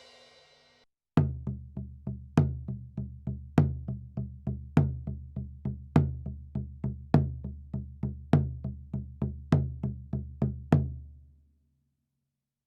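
A short comedic sound-effect clip of a low, pitched drum beat: a strong accented hit about every second and a bit, with quicker, softer hits between. It starts about a second in and dies away near the end.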